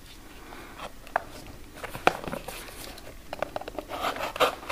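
Small cardboard toy box being handled and opened by hand: scattered light clicks and taps, then a busier run of scraping and rustling near the end as the end flap is pulled open.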